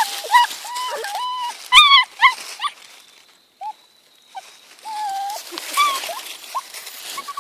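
German Shepherd puppies whining and whimpering in short, high-pitched cries again and again, with a brief pause in the middle. These are anxious whines of puppies hesitating to cross a bridge.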